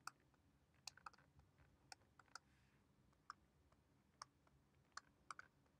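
Faint, irregular clicks of a stylus tip tapping a tablet screen while numbers are handwritten, about ten in all.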